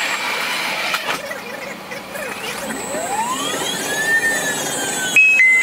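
Driverless Copenhagen Metro train running on its track: steady rolling noise, with an electric motor whine that rises in pitch from about halfway through as the train speeds up, then eases slightly. Near the end a loud two-tone falling electronic beep.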